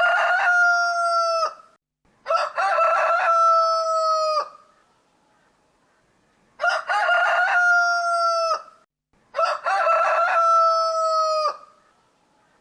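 Rooster crowing four times, each crow about two seconds long, opening with a short broken note and ending on a long held note that drops off. The first crow is already under way at the start, and the others follow at gaps of roughly one to two seconds.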